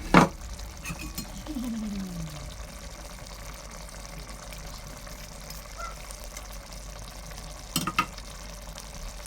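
A pot of egusi soup cooking on the fire with a steady sizzling, bubbling noise, and sharp knocks against the pot at the start and again about eight seconds in as the fried fish goes in.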